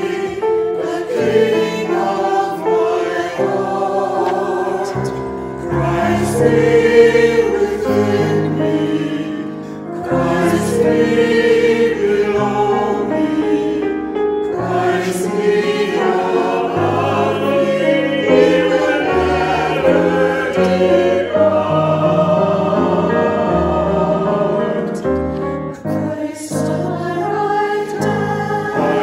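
Choir singing a Christian anthem with a steady moving bass line under the voices.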